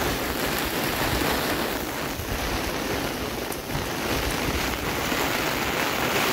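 Heavy monsoon rain falling steadily, an even hiss.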